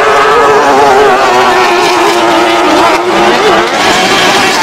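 Long-tail racing boat's engine running at high revs, its pitch wavering and sagging slightly for a few seconds before picking up again.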